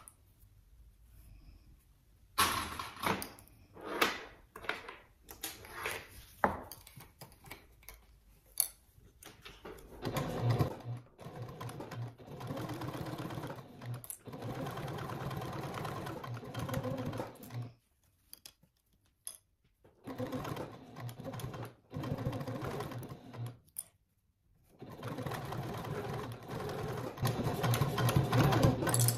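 Janome HD9 straight-stitch sewing machine stitching a seam. It runs in three spells with short stops between, and the last spell is the loudest. Light clicks and taps of fabric and clips being handled come before the stitching starts.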